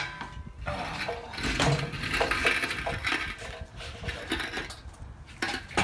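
Metal clinking and scraping from a 1996 Mazda Miata's transmission as it is pulled free and handled, with scattered sharp clicks.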